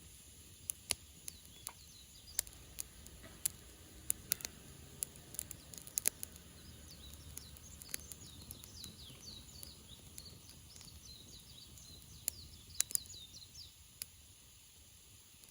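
Wood campfire crackling with sharp, irregular pops. A bird sings a quick run of high chirps from about six seconds in until near the end.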